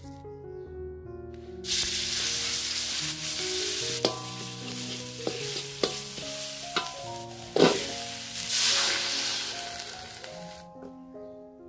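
Ground chilli, shallot and garlic paste sizzling in hot oil in a metal wok, stirred with a metal spatula that scrapes and clicks against the pan. The sizzle starts about two seconds in, swells again near the end, then dies away.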